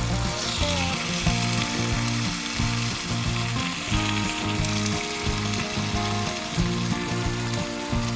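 Bacon sizzling in an oiled cast-iron skillet as more raw strips are laid in, a steady frying hiss, with background music over it.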